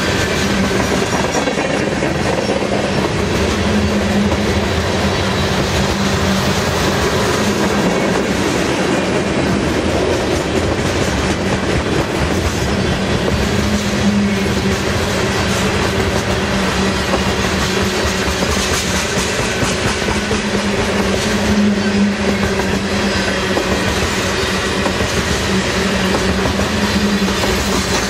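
Loaded coal hopper cars of a freight train rolling past, a steady loud rumble of steel wheels on the rails.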